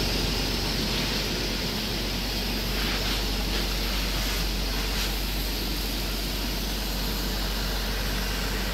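Fire engine running steadily with its pump feeding the hoses: a constant low rumble under an even hiss.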